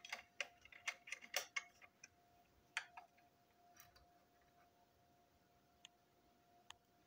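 Small plastic parts of a model railway brake van clicking and tapping as they are handled and fitted together: a quick cluster of clicks at the start, a sharper click about three seconds in, then a few faint ticks. A faint steady hum sits behind.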